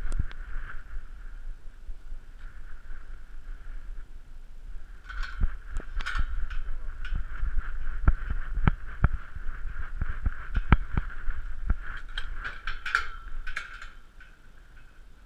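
Irregular knocks and rubs from a camera strapped to a walking dog, bumping with each step, thickest in the middle and giving way to a few sharp clicks near the end, over a steady high hum.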